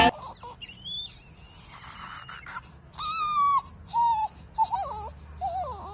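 Newborn baby crying in a string of short, thin cries: one held cry about three seconds in, then quicker cries that waver up and down in pitch.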